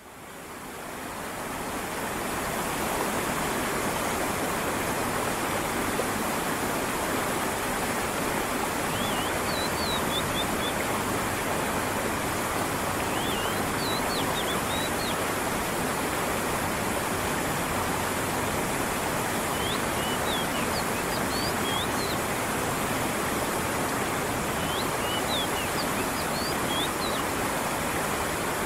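Stream water running and splashing steadily, fading in over the first few seconds, with short phrases of high bird chirps every few seconds.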